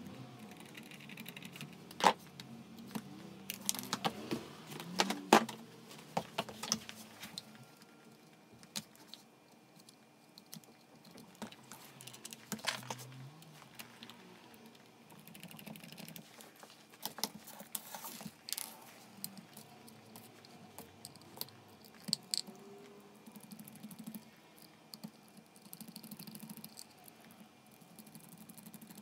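Scattered light clicks and taps of hands handling a Panasonic EZ75A7 impact driver's plastic housing, with the sharpest knocks about two and five seconds in.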